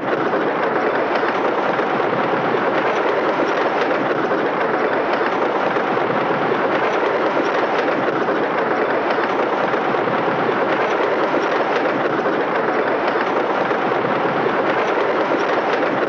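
A train rolling along the track: the steady, even noise of railroad cars' wheels running on the rails, with no horn or whistle.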